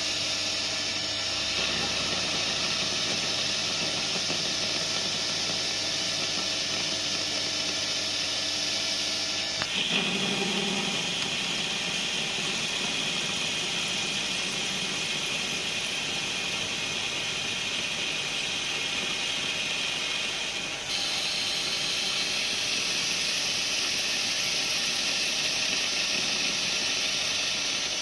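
Weisan WM210 benchtop lathe under CNC control running and cutting: a steady motor whine with a cutting hiss. The sound changes abruptly about ten seconds in, and again about two-thirds of the way through.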